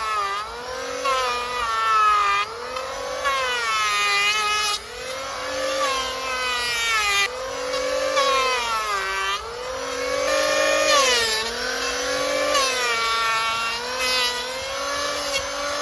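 Electric angle grinder running against a hoof. Its whine drops in pitch about every two seconds as the disc is pressed into the hoof and bogs down, then climbs back as the load eases.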